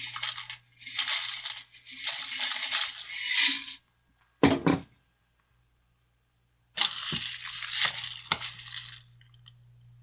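Dry cereal being poured into a bowl of milk in several separate pours, with about two seconds of silence in the middle.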